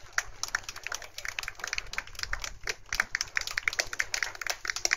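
Scattered hand clapping from a small group of spectators: quick, uneven claps that overlap.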